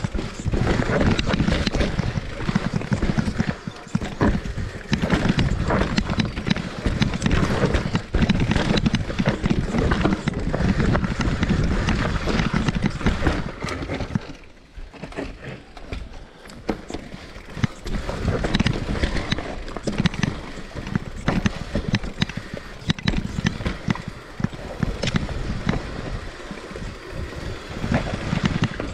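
Electric mountain bike clattering down a rough dirt and root trail: tyres on the ground with a dense run of irregular knocks and rattles from the bike. It quietens for a few seconds about halfway through, then picks up again.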